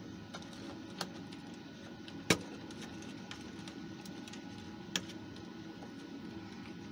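A few sharp clicks and taps from a screwdriver and fingers working the circuit board out of a Stylophone's plastic case, the loudest about two seconds in. A steady low hum sits under them.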